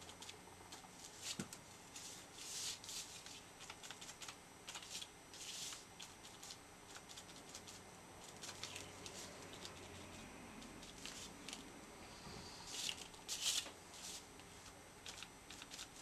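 A small sponge dabbing paint onto a paper card: faint, irregular scratchy dabs and rubs, a few louder clusters of quick strokes.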